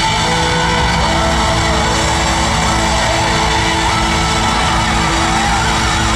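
Live rock band playing loudly, with electric bass, guitar and drums, heard through the arena's PA from the audience.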